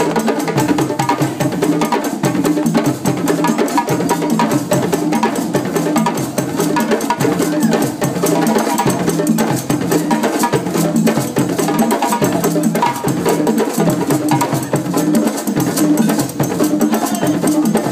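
A group of djembe drums played by hand in a fast, unbroken rhythm.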